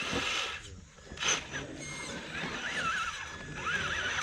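Electric motor and gear whine from a 1/10-scale RC rock crawler, wavering up and down in pitch as the throttle is worked, with a sharp knock about a second in.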